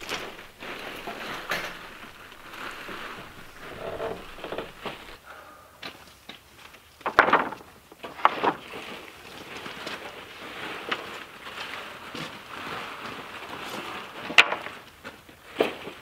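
A small paint roller scrubbing finish over rough-sawn wooden battens, with a few sharp wooden knocks as the boards are handled, the loudest about halfway through and near the end.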